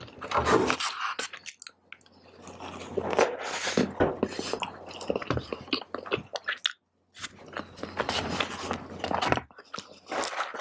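Close-miked chewing of a mouthful of fried rice, wet irregular mouth clicks and smacks with brief pauses.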